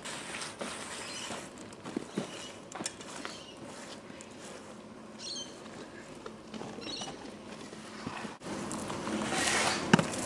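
Wet cob, a mix of clay and straw, being handled by hand: scattered small pats and clicks, a couple of short high chirps near the middle, then near the end a louder rustling crumble and one sharp slap as a clump is worked.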